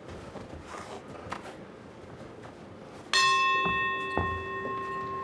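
Boxing ring bell struck about three seconds in and ringing on with several steady tones that slowly die away, marking the end of the round. A couple of sharp knocks follow soon after.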